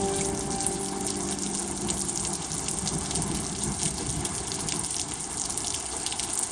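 Steady rain pouring down, an even dense hiss of drops.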